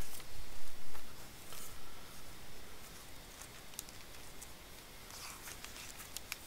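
A spiral paper notepad being handled and moved aside on a workbench: paper rustling and a few soft knocks in the first two seconds, then a few light ticks near the end.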